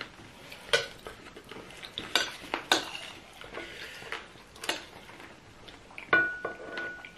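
Metal fork clinking and scraping against plates and a glass bowl during a meal, about five sharp clinks spread out, the last one about six seconds in leaving a clear ringing tone.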